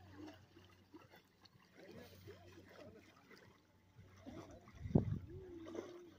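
Faint distant voices, with a single low thump about five seconds in.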